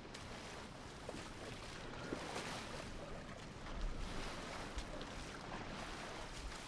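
Faint water sounds of elephants bathing: a steady wash of water with a few small splashes, a little louder around the middle.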